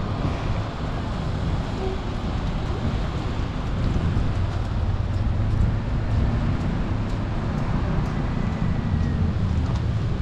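Steady outdoor city noise: a rumble of road traffic with wind on the microphone.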